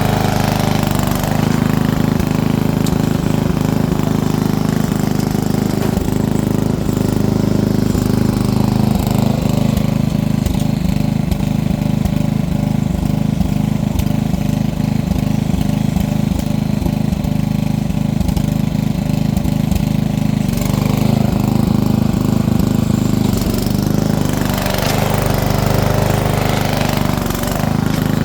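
A vehicle engine running hard on rough ground, with rattling throughout. It revs up about eight seconds in and again for several seconds later on.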